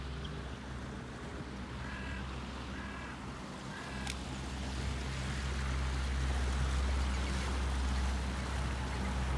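Engine of a passing river motor cruiser running with a steady low drone that grows louder as the boat comes close. About two to four seconds in, a duck quacks three times, followed by a single sharp click.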